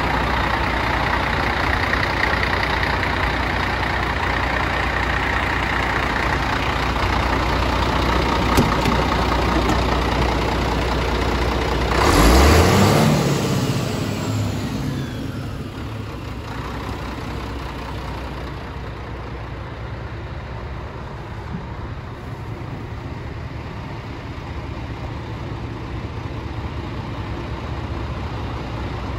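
Scania R114L 380 truck's turbo diesel engine idling steadily. About twelve seconds in it swells briefly and rises in pitch, then runs on quieter.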